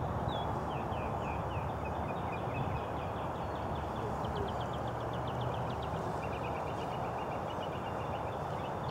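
Small birds chirping and trilling in short, rapid repeated phrases over a steady outdoor background hiss.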